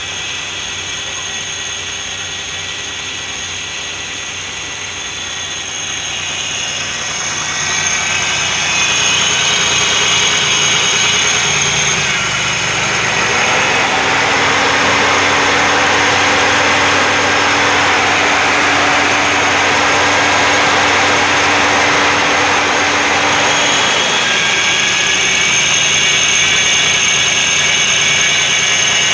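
Mercury Villager's V6 engine running with an exhaust leak behind the engine. The engine speed rises about halfway through, holds steady for about ten seconds, then drops back toward idle.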